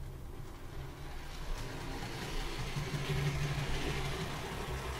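A Hornby model coach's metal wheels rolling along OO-gauge flex track: a steady low rumble with a hiss over it, growing louder about two to three seconds in.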